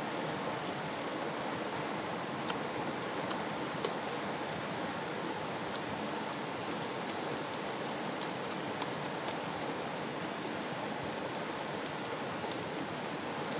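Steady rushing of a stream flowing over rocks, with a few faint clicks now and then.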